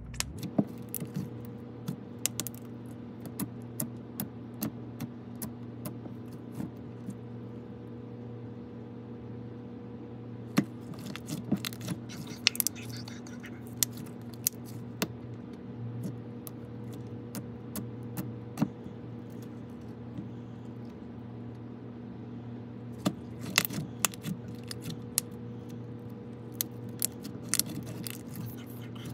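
Slime being handled for ASMR: scattered sharp clicks and pops as it is poked, pressed and stretched, bunched into quick runs in places. A steady low hum runs underneath.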